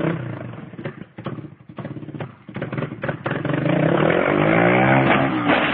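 A small engine, knocking and clattering at first, then revving up and down loudly from about halfway in.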